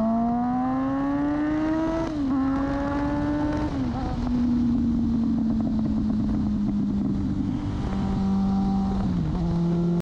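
Motorcycle engine pulling hard through the gears: the revs climb, drop at an upshift about two seconds in and again a couple of seconds later, then settle to a steady cruise with a slight easing near the end. Wind rushes past the onboard microphone throughout.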